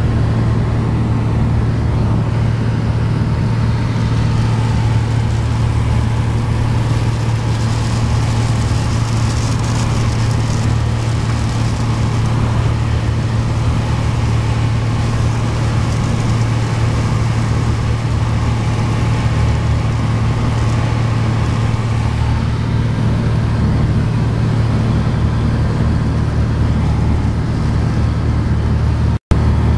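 Cabin noise of a Piper Dakota in flight: its Lycoming six-cylinder engine and propeller make a steady low drone, with air rushing past the airframe. The sound cuts out for an instant near the end.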